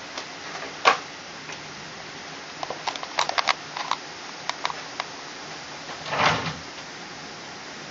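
Scattered knocks and clicks, a sharp one about a second in, a quick cluster in the middle and a longer clatter near the end, over a steady hiss of storm rain.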